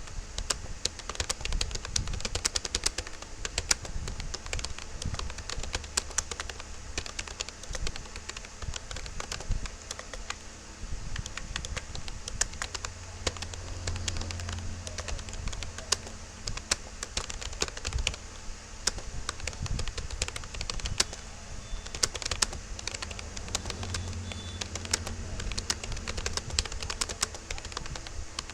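Rapid touch typing on a Rapoo computer keyboard: a continuous, uneven stream of keystroke clicks, several a second, during a timed typing test.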